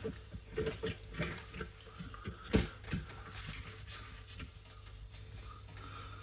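Hand tool clicking and knocking against a brake caliper as it is worked into the piston: a run of small metal clicks, one sharper knock about two and a half seconds in, then fainter handling noise.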